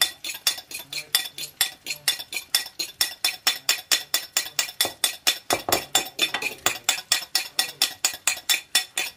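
A metal fork beating egg whites to a foam in a ceramic plate, the tines clinking against the plate in a fast, steady rhythm of about five strokes a second.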